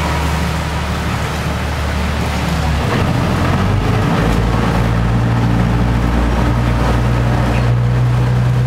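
Sightseeing boat's engine running steadily, a loud low hum with a hiss of water over it, heard from inside the boat's cabin; the engine note shifts about three seconds in.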